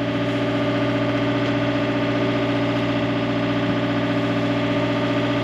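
Sailboat's engine running steadily while motoring under way, a constant even drone with no change in speed.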